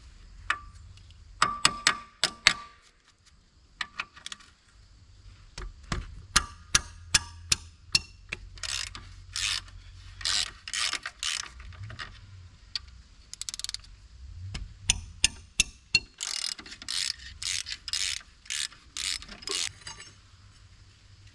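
Socket ratchet clicking in quick runs of strokes with sharp metal clicks, working the 17 mm bolts of the track-adjuster access cover on a Kubota SVL65 compact track loader.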